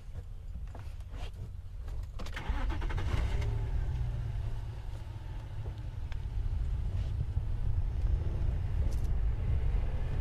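Safari game-drive vehicle's engine starting about two and a half seconds in, after a few short clicks, then running steadily.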